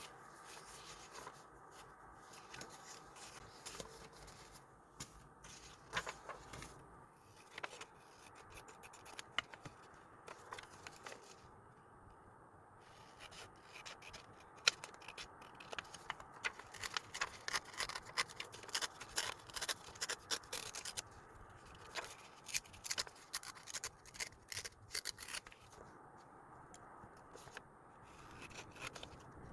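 Close-up sounds of paper and stickers being handled for diary decorating: runs of small quick clicks, snips, scrapes and rubs, busiest in the middle and again a little later.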